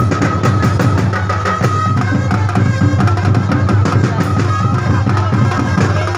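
Festival percussion band drumming a fast, steady beat on bass drums and snares, with a held high note over the drums for the first few seconds.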